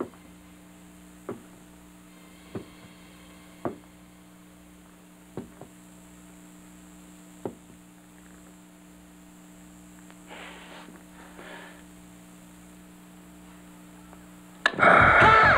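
A low steady hum with sharp, isolated knocks every second or two, then two brief soft hisses; about a second before the end a loud scream breaks in suddenly.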